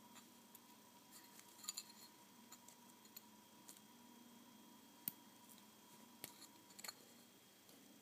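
Faint, scattered small clicks and ticks of small metal parts and hand tools being handled on a workbench during soldering of pin headers, over a low steady hum.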